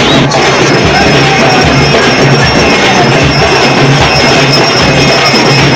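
Loud music with a steady drum beat and jingling percussion.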